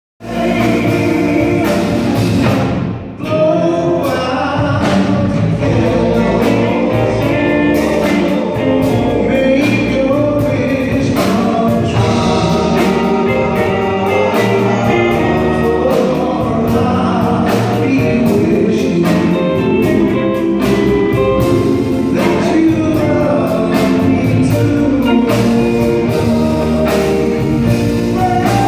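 Live band of drums, bass guitar, electric guitar and keyboards playing with a steady drum beat while male vocalists sing, with a brief break in the music about three seconds in.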